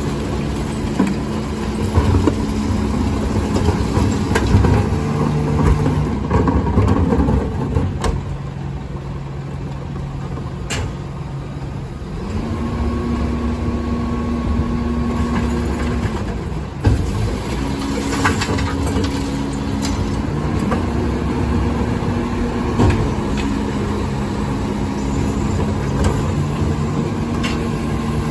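Rear-loading recycling truck's engine running, its pitch stepping up and down as the hydraulic rear bin lifter raises and tips wheelie bins into the hopper, with a steady whine for a few seconds about halfway through. Scattered knocks and clanks of the bins against the lifter.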